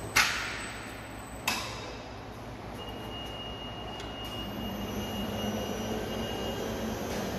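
ERBEND MFAS 3230 CNC servo folder cycling after a foot-pedal start: two sharp metallic clanks with a ringing tail about a second apart, then the servo drives run with a steady high whine and a low hum that builds toward the end.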